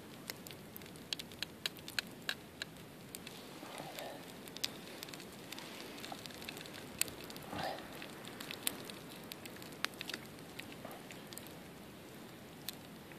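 Small wood fire crackling, with sharp irregular pops and snaps over a soft steady hiss.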